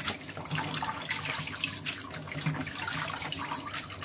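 Kitchen tap running into a stainless steel sink, the water splashing unevenly over shrimp heads and shells being rinsed in a mesh strainer.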